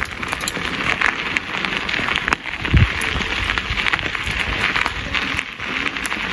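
Footsteps crunching on a dirt-and-gravel trail, a steady run of small crackles and clicks, with one low thump a little under three seconds in.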